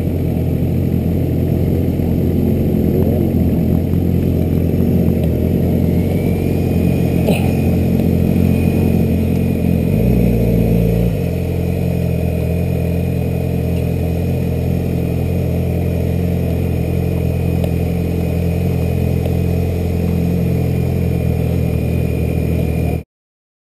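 Sport motorcycle engines idling together, one close engine running steadily, with a brief swell in engine sound about ten seconds in. The sound cuts off suddenly near the end.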